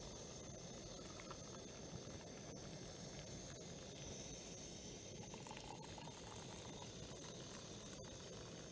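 Hot pasta-cooking water trickling from a tilted pot, past its held lid, into plastic mugs: a faint, steady hiss.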